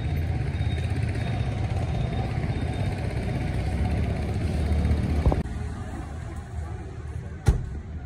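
Street traffic with a steady low vehicle-engine rumble. It drops a little about five seconds in, and a single sharp knock comes near the end.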